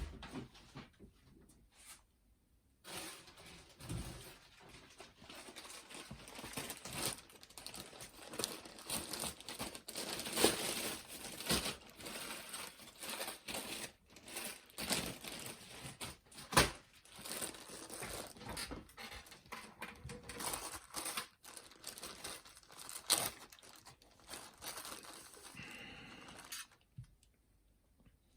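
Hands working on a boombox cassette deck mechanism: a dense run of rustling, crinkling and scraping with many small sharp clicks, starting about three seconds in and stopping shortly before the end.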